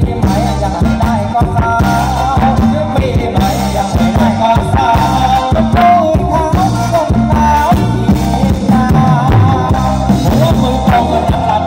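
Thai retro ramwong dance music playing loud, with a steady, evenly pulsing bass beat and a wavering melody line over it.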